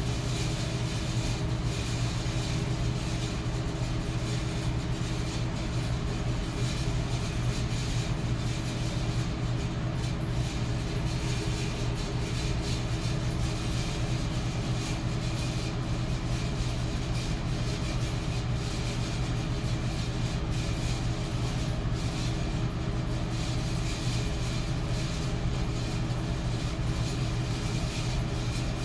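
Metal electric fan running steadily: an even rush of air over a low motor hum.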